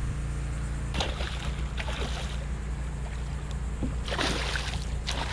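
A hooked common snook thrashing at the surface beside a kayak as it is netted, with splashy bursts about two seconds in and again about four seconds in. A sharp knock comes about a second in, over a steady low rumble.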